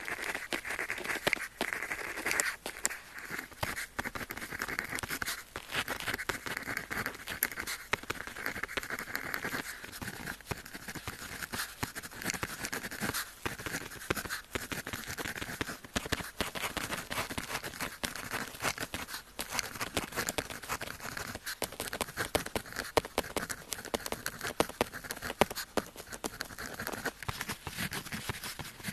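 Pen tip scratching across paper in continuous writing, a dense run of short scratchy strokes.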